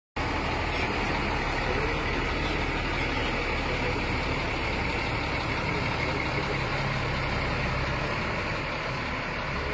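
Bus engine idling steadily, a low rumble that eases slightly near the end.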